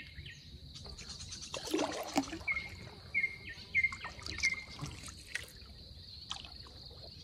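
A bird giving short, repeated chirps, four in quick succession about half a second apart from about two and a half seconds in, over a steady high insect drone. A brief louder noisy scuffle comes about two seconds in.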